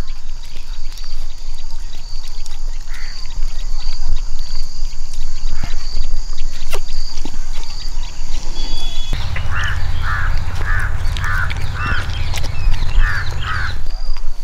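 Birds calling outdoors: a high chirp repeats about twice a second at first, then about nine seconds in a quick series of about seven calls comes over a low rumble that stops just before the end.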